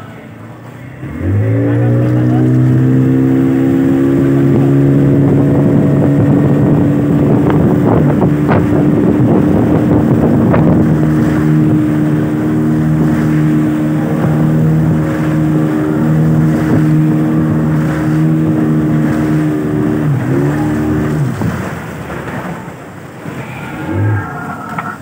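Speedboat motor revving up about a second in and then running at a steady pitch as the boat goes along, with the rush of water and wind over it. It throttles back and dies down a few seconds before the end.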